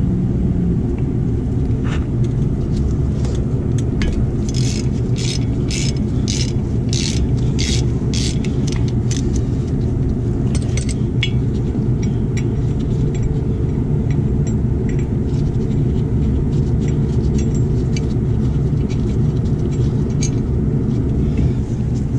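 Ratchet clicking in short strokes, about two a second for several seconds, while backing out the T30 Torx screw that holds a brake rotor to its hub. A steady low rumble runs underneath.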